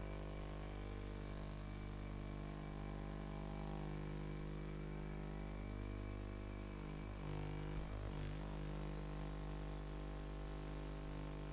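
Steady electrical hum made of many fixed tones, with a brief crackly disturbance about seven to eight seconds in.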